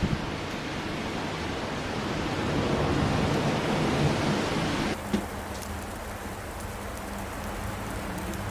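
Steady outdoor rushing noise, with no distinct source. About five seconds in it changes abruptly to a quieter hiss with a low steady hum and faint light ticks, like a cut between two recordings.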